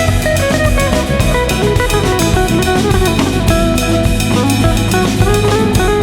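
Background music with a drum kit and guitar, playing steadily with a regular beat.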